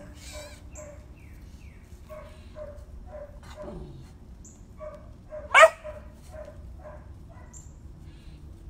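A dog gives one sharp bark about five and a half seconds in, over fainter short dog sounds.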